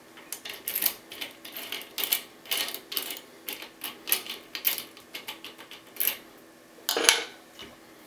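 Key sliding into and out of a five-pin FTH Thirard Adria euro cylinder: a quick run of sharp metallic clicks and scrapes as it rides over the pins. The loudest clicks come near the end.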